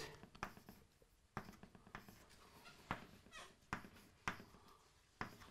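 Chalk writing on a blackboard: a string of faint, sharp taps and short scratches, about one every half second to second, as letters and dots are chalked.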